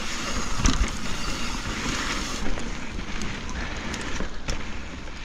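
Wind rushing over the microphone while a mountain bike rolls fast down a dirt trail, its tyres running on the loose surface. Two sharp knocks come from the bike hitting bumps, about a second in and near the end.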